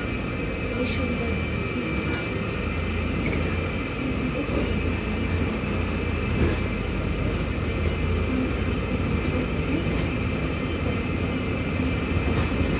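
Interior running noise of a MAZ 216.066 city bus under way: a steady low drone with a constant high whine over it.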